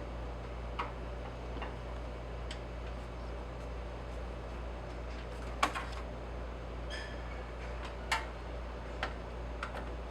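Irregular light clicks and taps, about nine scattered through, the loudest two in the middle and late, over a steady low electrical hum.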